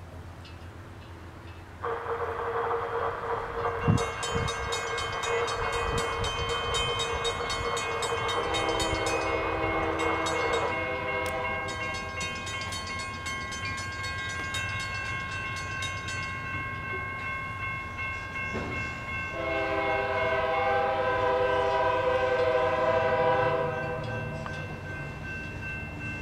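Diesel freight locomotive sounding its multi-chime air horn in long blasts as it approaches a grade crossing, starting about two seconds in and swelling again near the end. A crossing signal bell rings rapidly through the middle.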